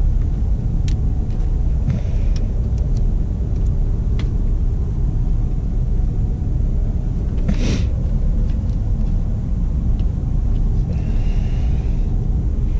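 A steady low rumble throughout, with a few faint clicks and a brief rustle from hands working black split plastic wire loom over a wire, one rustle about two-thirds of the way through.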